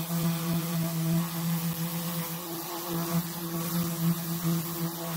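Electric random orbital sander running steadily while it is worked over a plexiglass sheet: a constant motor hum with a hiss of abrasive on plastic.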